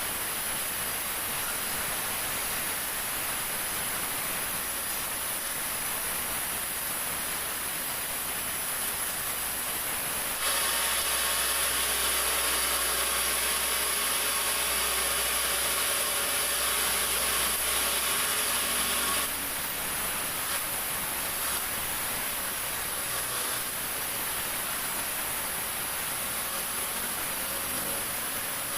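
Sawmill saw running steadily as it cuts through jackfruit wood, getting louder for several seconds in the middle of the cut.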